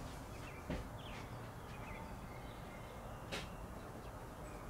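Faint outdoor background with scattered short bird chirps over a steady hiss, and two sharp clicks, one just under a second in and another about two and a half seconds later.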